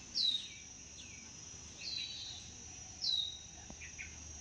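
A bird calling three times, each a short call sliding down in pitch, about a second and a half apart, over a steady high-pitched insect drone.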